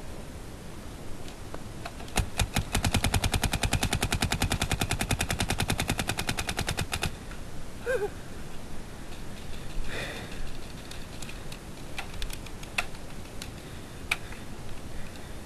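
Paintball marker firing a fast string of shots, about ten a second for roughly five seconds, then a few single shots.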